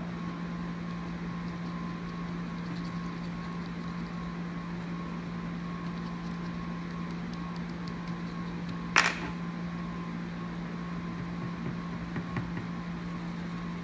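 Steady low hum of room or equipment noise, with a faint higher tone held under it. About nine seconds in, a single sharp click.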